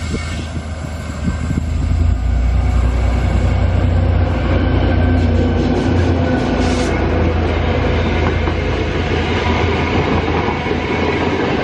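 The Westlander passenger train passing close by at speed: the diesel locomotive's engine rumble swells over the first two seconds, then the steady rush of the carriages' wheels running on the rails.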